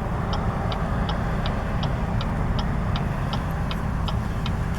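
Car turn signal ticking steadily, about three ticks a second, over the low hum of the engine and road noise inside the car.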